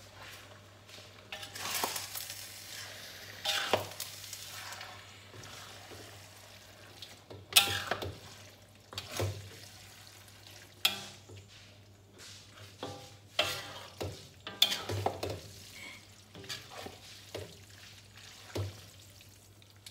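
Wooden spatula stirring and scraping spaghetti in thick red sauce around a wok, with the sauce sizzling. Irregular scrapes and knocks against the wok run throughout; the loudest comes about seven and a half seconds in.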